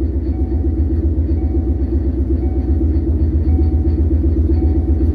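Freshly swapped Ford Coyote 5.0 V8 idling steadily on its first start-up, heard from inside the car's cabin. A faint short tone repeats about once a second in the background.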